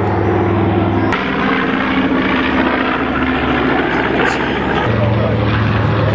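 Propeller airplane engines droning steadily as the plane flies past overhead. There is a sharp click about a second in.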